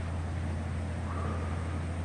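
A rain-swollen, muddy creek rushing steadily, a continuous running-water noise with a deep low rumble.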